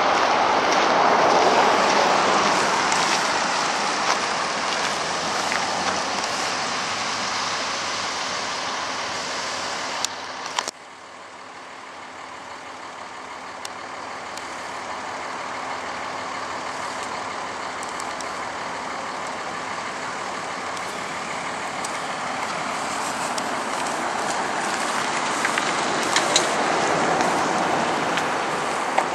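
Road traffic going by: the rushing noise of a passing vehicle fades away over the first ten seconds and is cut off with a couple of clicks. Then another vehicle's noise slowly builds and passes near the end.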